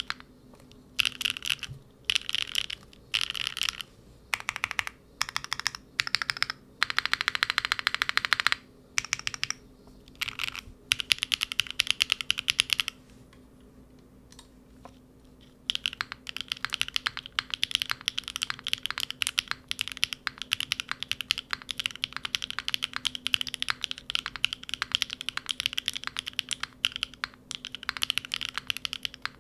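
Typing on a mechanical keyboard with Unikeys Udon linear switches, aluminium plate, no foam and GMK keycaps: short bursts of keystrokes, one fast dense run, and a pause about halfway, then near-steady typing.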